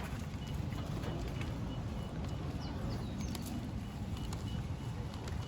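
Wind buffeting the microphone: a steady low rumble that rises and falls, with a few faint clicks.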